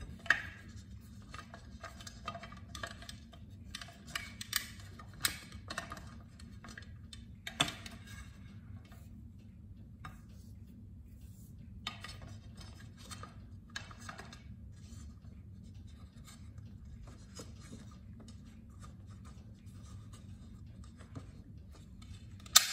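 Rubber sealing ring being handled against an aluminium pressure cooker lid: scattered scraping, rubbing and light clicks as the gasket is pulled from and worked around the lid's rim, over a low steady hum. A sharp knock near the end.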